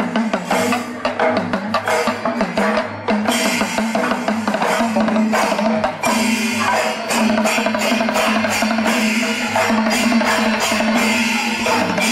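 Music with dense, fast drumming and percussion over a steady low tone; the sound changes abruptly about six seconds in.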